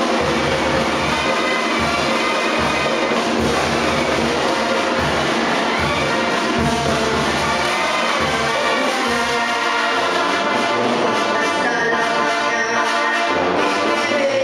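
A Mexican banda playing live, a brass band with sousaphones carrying the bass line under the horns.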